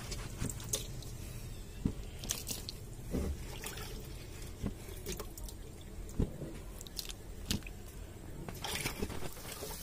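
Cauliflower florets being dropped by hand into a pan of hot salted water: a dozen or so small irregular plops and splashes.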